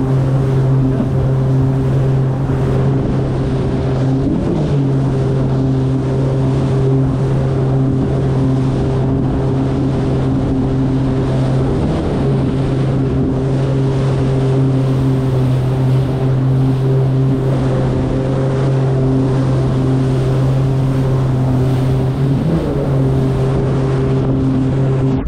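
Jet ski engine and jet drive running steadily at speed, a steady drone with spray hissing off the hull. The engine note dips briefly and comes back up three times: about four seconds in, about twelve seconds in, and near the end.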